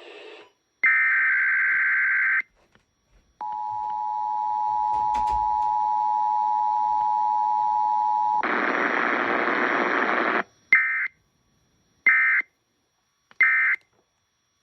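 Emergency Alert System test tones: a burst of SAME header data (a buzzy digital screech), a pause, then the two-tone attention signal held steady for about five seconds. About two seconds of hiss follow, then three short end-of-message data bursts about a second apart.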